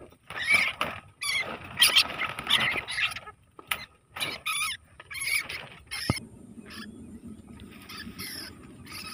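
Field rats squealing in short, sharp bursts in wire cage traps as they are handled and emptied into a holding cage. The squeals stop about six seconds in, giving way to a steady low rustle.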